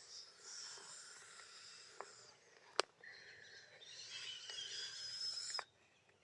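Forest ambience of birds and insects calling in thin, high overlapping tones, with a single sharp click a little under three seconds in. The sound cuts off suddenly shortly before the end.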